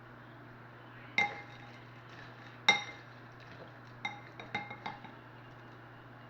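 A spoon clinking against a bowl of cereal and milk: five ringing clinks, two single strikes about a second and a half apart and then a quick run of three, the second strike the loudest.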